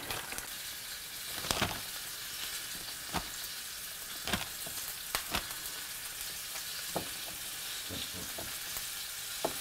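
Floured chunks of snapping turtle meat frying in hot oil in a cast-iron skillet: a steady sizzle with sharp pops scattered through it.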